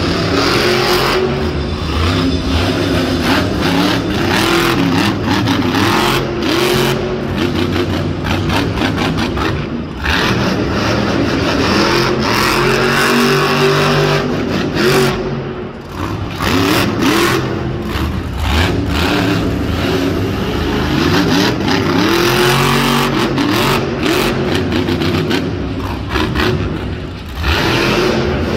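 El Toro Loco monster truck's supercharged V8 revving hard as the truck drives and turns on the dirt, its pitch rising and falling over and over.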